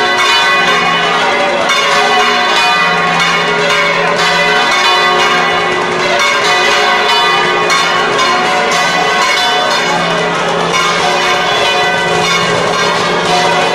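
Church tower bells ringing in a fast, continuous peal, many strokes overlapping into a dense clanging wash.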